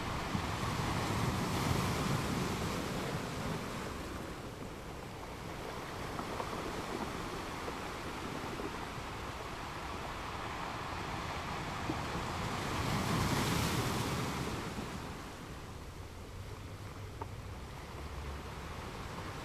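Sea waves washing in, a steady hiss of surf that swells twice, once near the start and again about two-thirds of the way through.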